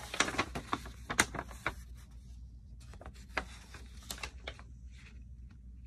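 Plastic and paper packaging rustling and crinkling as it is handled, with dense crackles in the first two seconds, then a few scattered ones.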